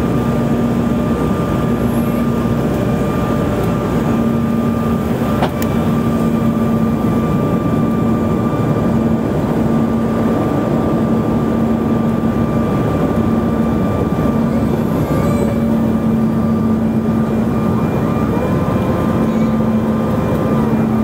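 Cabin noise inside a CRJ-900 regional jet on approach: the steady roar of airflow and its rear-mounted General Electric CF34 turbofan engines, with a low hum that comes and goes and a faint high whine. A single short click about five and a half seconds in.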